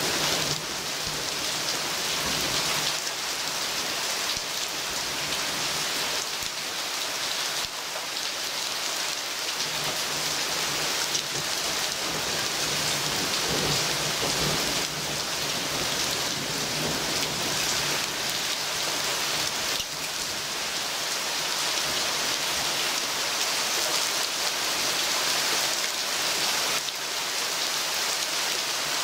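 Heavy thunderstorm downpour: a dense, steady hiss of rain falling on leaves and the ground, with low rumbles of thunder now and then.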